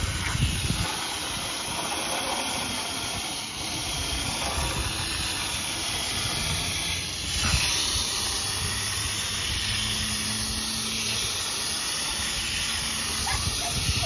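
Water from a pistol-grip garden-hose nozzle spraying against a package unit's condenser coil: a steady hiss that swells briefly about halfway through. The coil is being rinsed, washing foamed coil cleaner and dirt out of the fins.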